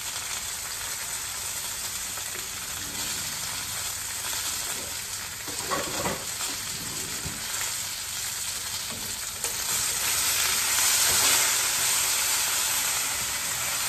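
Diced potatoes and red onion sizzling as they fry in a pot, a steady hiss. About two-thirds of the way through it grows louder as a slotted spoon stirs them.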